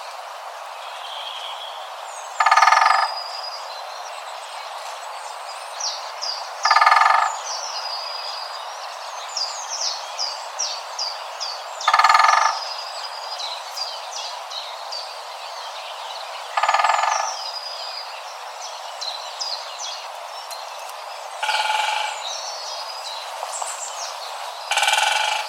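Great spotted woodpecker drumming: six short, loud rolls of about half a second each, four to five seconds apart, the bird's territorial signal. Between the rolls, small birds give many short, high chirps.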